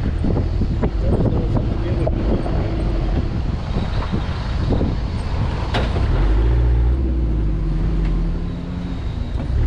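Safari jeep driving over rough ground: the engine runs under a heavy rumble with scattered knocks and rattles in the first few seconds, then settles into a steadier engine hum from about six seconds in.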